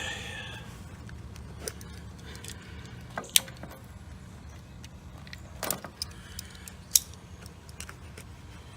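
Sharp metallic clicks and clinks of tools and hardware being handled as a start capacitor is fastened inside an air-conditioner condenser cabinet. There are a few separate strikes, the loudest about three and a half and seven seconds in, over a steady low hum.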